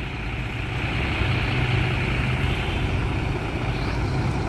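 Intercity coach diesel engines idling at close range: a steady low hum with an even hiss over it.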